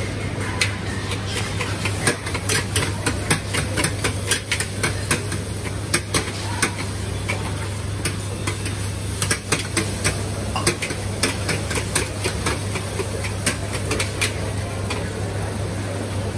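Hawker-centre kitchen clatter: many sharp, irregular clanks and clicks, several a second, over a steady low hum.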